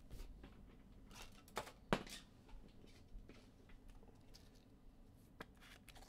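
Baseball trading cards and their packaging being handled: a faint, irregular string of light rustles and clicks, the loudest about two seconds in.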